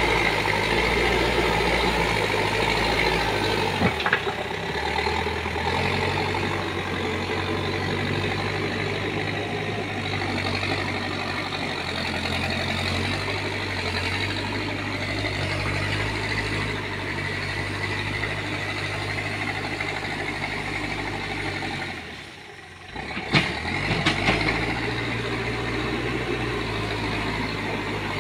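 Backhoe loader's diesel engine running under load, its speed stepping up and down as it works the front bucket and drives. Near the end the engine sound briefly drops away, followed by a sharp knock.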